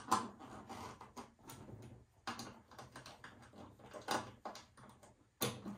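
Hand screwdriver tightening 10-32 machine screws into a chrome door hinge: irregular clicks and scrapes of metal on metal, the loudest just after the start and again near the end.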